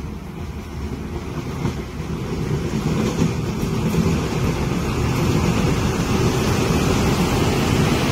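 A Seoul Subway Line 3 electric train approaching and passing close by. Its low rumble with a hiss of wheels on rail grows louder over the first few seconds, then holds steady as the cars go by.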